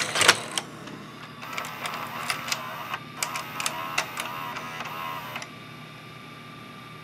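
Sony SLV-595HF VCR taking in a cassette: a clunk as the cassette is seated, then the mechanism's motor whirring with rapid gear clicks for about four seconds, stopping abruptly. A faint steady hum from the running unit follows.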